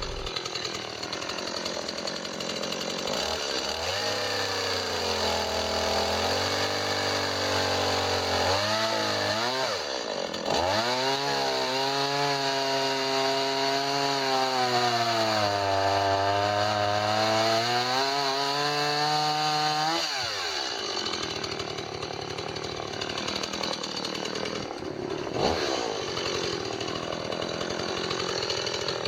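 Chainsaw revving and cutting through a fallen tree. Its pitch climbs a few seconds in, dips briefly near the middle, holds high, then falls off about two-thirds of the way through to a quieter running sound.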